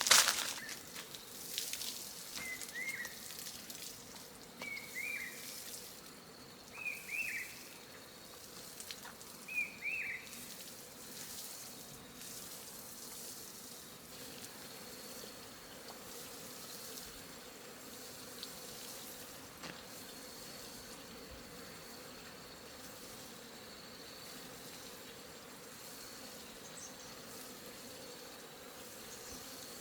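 Insects buzzing faintly in a steady thin high tone. Four short chirps come a couple of seconds apart in the first ten seconds, and a few clicks and rustles sound at the very start.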